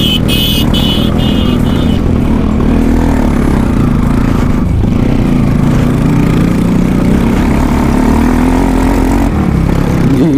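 Motorcycle engine running under load on a loose dirt track, its pitch rising and falling with the throttle, over a steady rush of wind noise on the helmet microphone. A high whistling tone sounds for the first two seconds.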